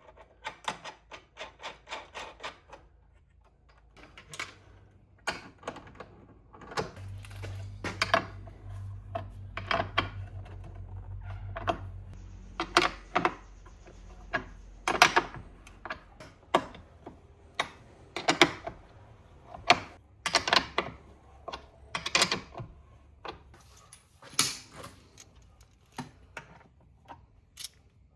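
A series of sharp clicks and knocks: a quick run of about six clicks a second at the start, then irregular single knocks, with a low steady hum for a few seconds in the middle.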